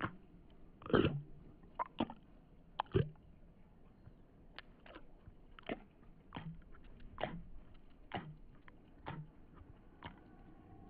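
Pen strokes scratching across paper as curved lines are drawn: a series of short, quick scratches at an irregular pace, roughly one or two a second, over a faint background drone.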